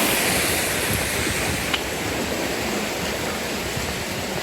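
Steady rush of flowing stream water, with one faint click a little under two seconds in.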